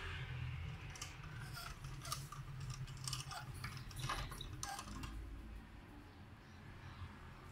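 Filament spool dispenser running on its small brushed DC motor: a low steady motor hum with irregular clicking and ticking from the plastic spool gears as they turn.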